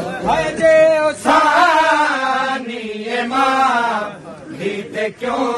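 Male voices chanting a noha, a Shia mourning lament, in a drawn-out melodic line that rises and falls, dipping briefly about four seconds in.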